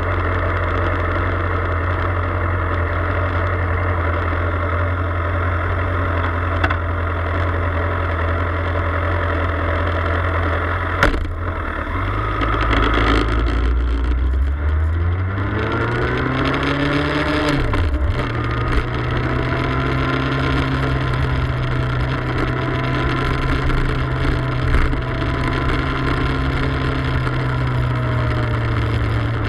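Motorcycle engine idling steadily, then a click about eleven seconds in and the engine revving up as it pulls away, with a brief dip in pitch like a gear change, before running at a steady higher speed.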